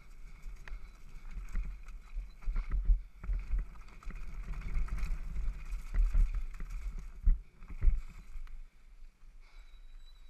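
Devinci Wilson downhill mountain bike ridden fast down a dirt trail: tyres rumbling over the ground, with frequent knocks and rattles from the bike over bumps. It quietens near the end as the bike rolls slowly onto gravel.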